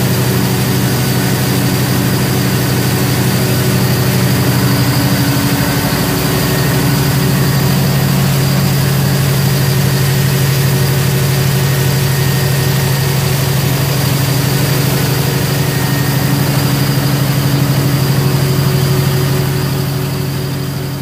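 Mitsubishi S16R V16 diesel engine of a 2000 kVA generator set running steadily at constant speed on a test run, a deep, even drone without changes in pitch.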